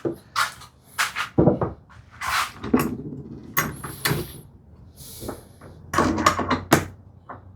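A series of irregular wooden knocks and clunks, about a dozen, as a glued-up mortise-and-tenon frame and its clamps are handled and adjusted, with a short scrape about five seconds in.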